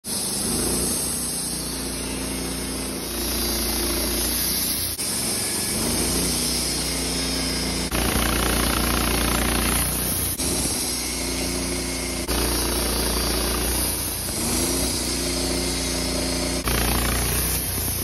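Wood-Mizer LT15 portable band sawmill running, its engine and band blade sawing through a Douglas fir log. The steady machine noise changes abruptly several times.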